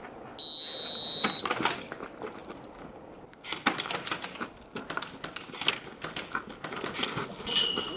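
A loud, high electronic beep lasting about a second, then, from about three seconds in, a run of irregular sharp clicks and taps.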